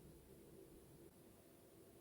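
Near silence: faint room tone with a low steady hum that fades out about a second in.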